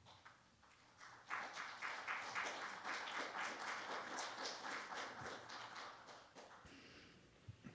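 Congregation applauding: a dense patter of many hands that starts abruptly about a second in and dies away near the end.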